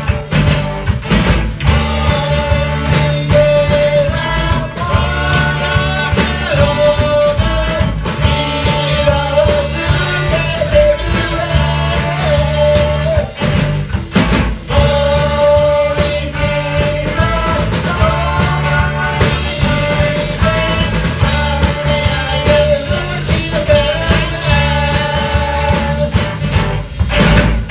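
Live rock band playing a pop-rock song: drums, bass and guitar under a held melody line.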